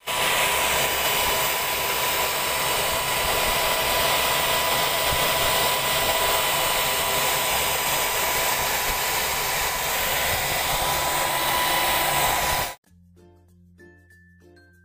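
Homemade waste-oil stove with an electric blower running at full burn: a steady rushing roar of air and flame with a thin constant whine. It cuts off abruptly near the end and soft plucked music takes over.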